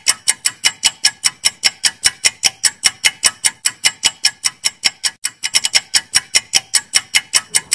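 Countdown-timer sound effect: sharp, even clock-like ticks, about five or six a second, packed a little closer for a moment past halfway.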